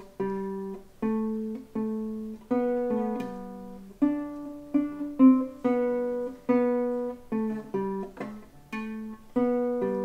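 Nylon-string classical guitar played by a child: a slow melody of single plucked notes, each left ringing before the next.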